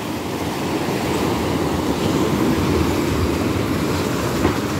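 Steady rumbling wash of water: small waves surging and breaking white against a concrete boat ramp beside a wooden pier.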